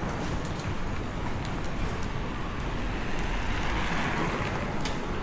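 Steady outdoor street noise of road traffic: a low rumble and hiss that swells for a couple of seconds around the middle.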